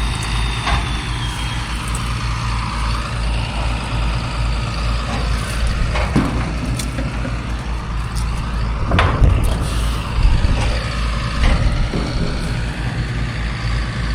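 Farm tractor's diesel engine running steadily at low speed, with a few metallic knocks and clanks from the hydraulically lowered module builder about six, nine and eleven seconds in.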